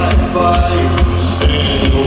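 Live band playing loud electronic post-punk: a steady drum beat over a pulsing bass line, with guitar and synthesizer.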